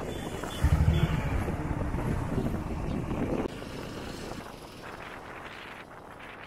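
Road noise heard from a moving vehicle, with a motorcycle's engine running loud close by from about half a second in. After about three seconds it drops away and the noise keeps fading.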